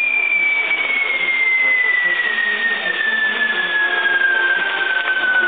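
Spinning firework wheels burning with a steady hiss. One long whistle slowly falls in pitch throughout.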